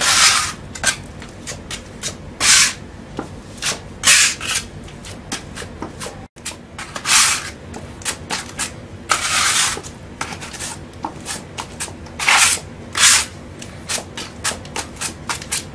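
Steel putty knife scraping across a terrazzo floor as it mixes wall putty and water into a smooth paste: a series of irregular scraping strokes, some brief and some about half a second long.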